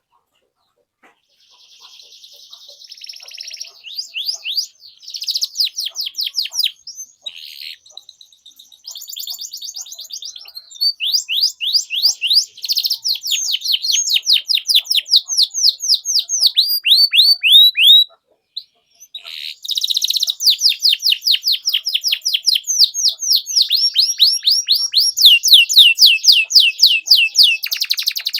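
Domestic canary singing long, fast trills of repeated falling chirps, several notes a second, with a brief break about two-thirds of the way through.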